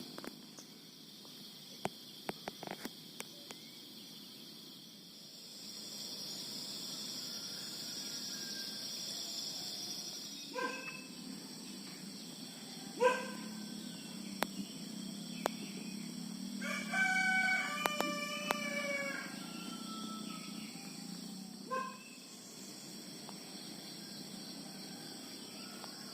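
Outdoor nature ambience: a steady, high insect chorus with several short bird calls and one longer call of about two seconds a little past the middle. A few light clicks come about two seconds in.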